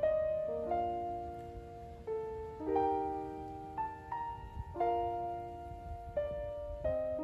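Slow solo piano background music, with chords struck about once a second and left to ring out.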